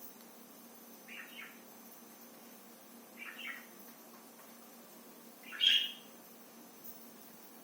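Pet parrot whistling in three short calls a couple of seconds apart, the last one the loudest.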